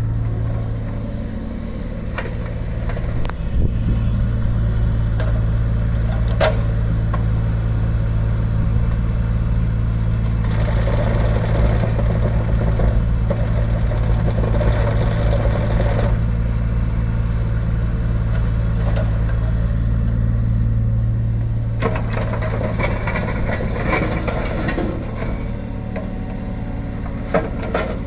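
Kubota U20-3a mini excavator's small diesel engine running steadily. Extra mechanical noise rises over the engine hum in two stretches, about ten to sixteen seconds in and again from about twenty-two seconds in.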